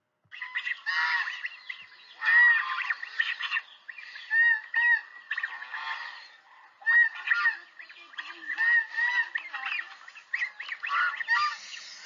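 Geese calling: a long run of short, high-pitched calls from several birds, overlapping and repeating with brief gaps.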